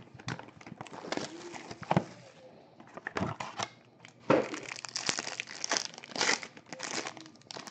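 Foil wrapper of a trading-card pack crinkling in the hands and being torn open, in irregular crackly bursts that are thickest in the second half.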